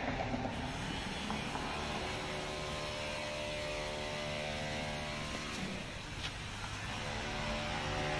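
Motor traffic: an engine hum that comes in after a second or so, holds steady, then fades near the end, over a continuous bed of traffic noise.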